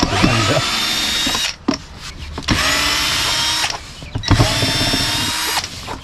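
Cordless drill-driver running in three short bursts on screws, each burst spinning up with a rising whine and then holding steady.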